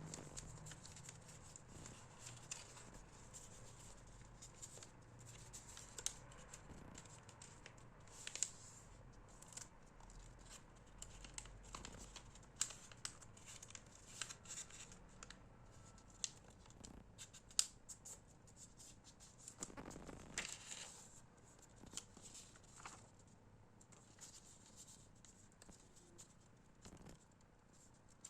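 Sheet of paper being handled and folded into a paper airplane: scattered crisp clicks and brief rustles of paper, with a longer rustle about twenty seconds in.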